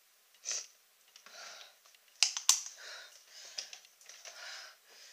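An interior glazed door being shut, with two sharp clicks a little after two seconds in as it closes and latches. Soft breaths come and go every second or so between the clicks.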